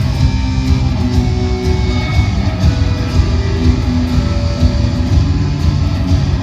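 Guitar-led rock song played by a band, guitars over a steady bass and drum beat.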